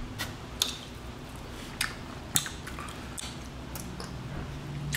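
Eating sauced chicken wings: scattered wet smacks and sharp clicks of chewing and of fingers working the wings, about seven in five seconds, over a low steady background hum.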